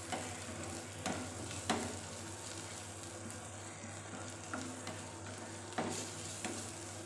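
Diced vegetables sizzling as they are sautéed in a non-stick frying pan and stirred with a silicone spatula, with a few short scrapes and taps of the spatula against the pan.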